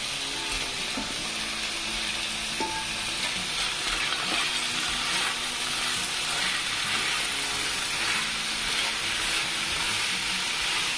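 Raw rice, diced meat and broccoli sizzling in a hot non-stick frying pan with a steady hiss, stirred with a spatula, which makes a few faint scrapes.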